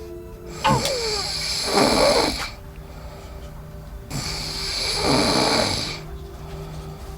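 A woman snoring in her sleep: two long, loud snores about three and a half seconds apart, over soft background music.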